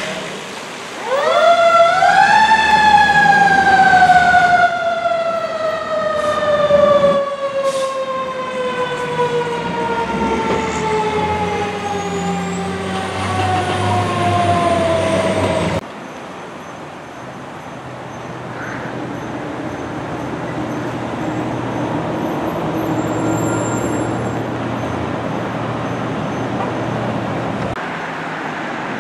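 Fire engine siren winding up to a peak and then winding slowly down over about thirteen seconds, over the truck's engine, before cutting off sharply. After that, a quieter low engine rumble continues as the apparatus pulls away.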